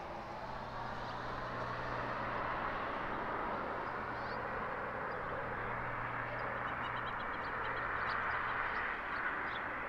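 Steady wash of distant vehicle traffic with a low engine hum that stops about seven seconds in, and faint high chirping over it, a quick run of chirps near the end.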